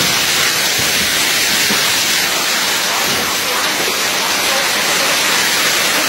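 Heavy rain and hail pouring down in a loud, steady rushing hiss during a hailstorm.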